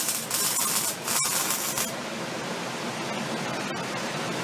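MIG welding arc crackling and hissing as a bead is run on steel, stopping abruptly about two seconds in; a quieter steady hiss remains.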